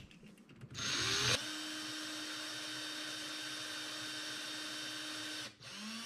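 Ryobi cordless drill with a 1/16-inch bit drilling a pilot hole into the rivet post of a diecast car's base. A short harsh burst as it starts, then a steady whine for about four seconds that stops shortly before the end, with a brief restart after.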